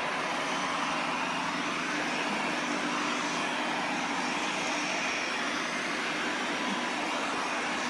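iLife A4 robot vacuum running in spot-clean mode, working over one patch of floor litter with a steady, even whir and a faint low hum.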